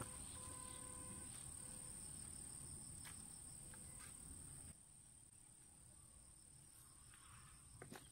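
Faint outdoor ambience with a steady, high-pitched trill of insects, dropping quieter a little past halfway.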